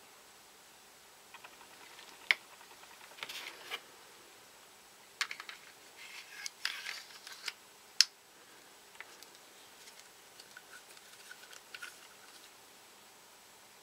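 Ruger 22/45 Lite pistol parts being handled during disassembly or reassembly: sharp metallic clicks, the two loudest about two and eight seconds in, with brief scraping and rattling between them.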